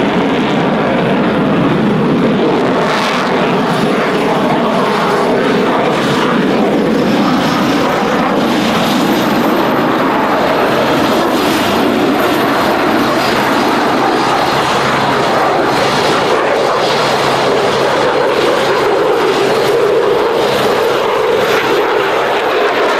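Eurofighter Typhoon fighter jet's twin Eurojet EJ200 turbofans: a loud, steady jet roar as the aircraft flies overhead.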